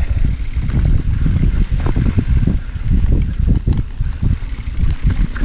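Mountain bike riding down a dirt singletrack: a steady low rumble of wind on the camera microphone and tyres on dirt, with frequent short knocks and rattles as the bike goes over bumps and rocks.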